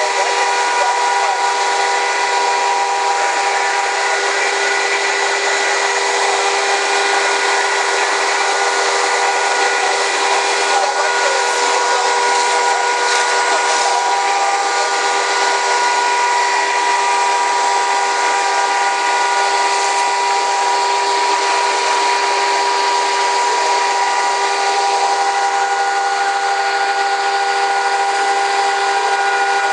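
Fire hoses spraying at full pressure, heard as a loud, steady hiss. Under the hiss, fire engine pumps run with a constant whine of several held tones.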